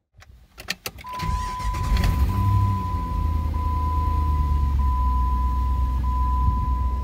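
2002 Jeep Grand Cherokee WJ engine starting about a second in after a few clicks; the revs flare briefly and then settle into a steady idle. A steady high-pitched tone sounds alongside.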